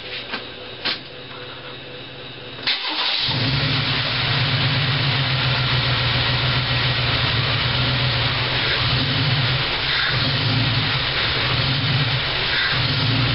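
1993 Chevy S10 Blazer's rebuilt 4.3-litre V6 started for the first time on a newly installed MSD distributor, with the ignition timing not yet set. About three seconds in it turns over and catches almost at once, then runs steadily.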